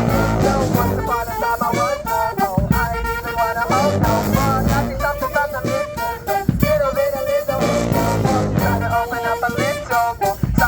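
Brass band playing a lively pop tune live: several horns carrying the melody over a steady drum beat.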